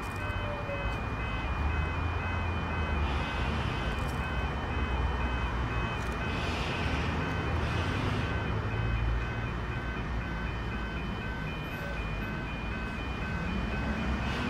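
Steady electronic warning tone that steps back and forth between two pitches, with a few fainter steady tones beside it, over a low uneven rumble, with brief hissing swells about three, six and eight seconds in.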